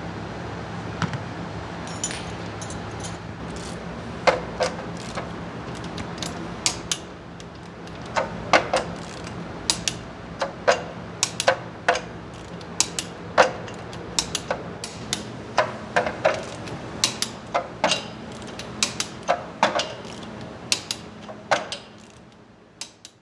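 Metal hand tools and parts clinking and knocking irregularly, dozens of sharp strikes, over a steady low hum like a fan. The sound fades out at the very end.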